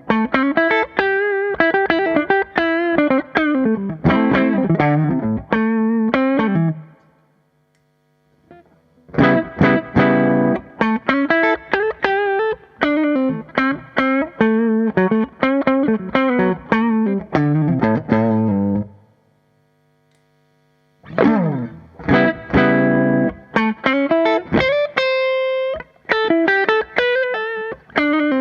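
Electric guitar with humbucker pickups (an ES-335-style semi-hollow) played through an AmS Hurricane 40 valve amp head with four 6V6 power tubes, giving a driven, overdriven tone. The player runs lead lines and chords in three phrases, with brief silences about seven and twenty seconds in.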